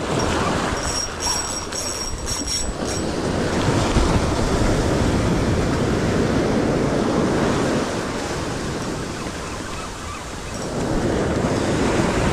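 Ocean surf breaking and washing over the sand, a steady rushing that swells and eases over several seconds.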